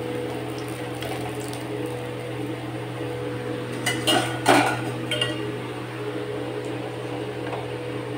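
A steel spatula and steel cookware clinking and clattering as fried fish pieces are lifted out of a wok of oil, with a short run of sharp clanks about four seconds in, over a steady low hum.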